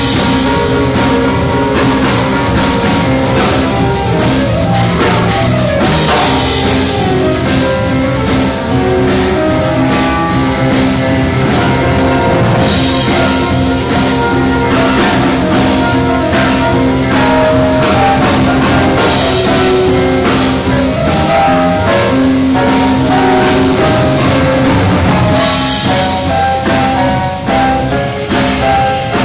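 Background music with a steady beat: instruments playing a melody over drums, with a cymbal-like swell every six or seven seconds.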